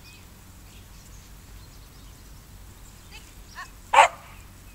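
A dog gives a single short, sharp bark about four seconds in, after a fainter yip just before it, over quiet open-air background.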